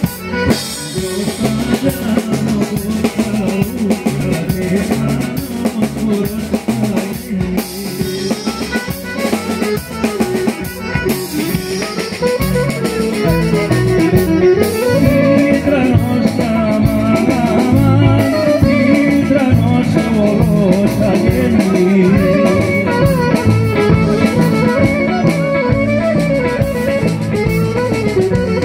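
Greek folk dance music over loudspeakers, with a drum kit keeping a steady beat under a melody. The wavering melody line grows louder about halfway through.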